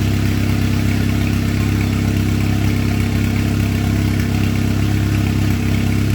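Turbocharged 2004 Chevrolet Cavalier's engine idling steadily, with an even tone and no revving.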